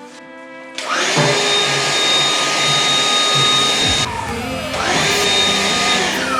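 Electric vacuum cleaner switched on about a second in, its motor whining up to speed and running steadily, then winding down. It is switched on again briefly and winds down once more near the end.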